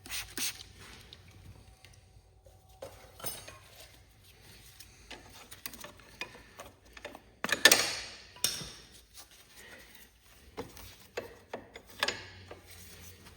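Scattered metallic clinks and light knocks of hand tools and small metal parts being handled, with a louder clatter about halfway through.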